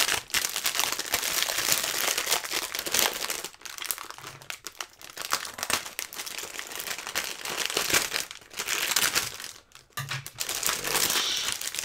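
Thin clear plastic wrapping crinkling as it is handled and pulled off a stack of paperback books, in irregular bursts with a couple of short pauses.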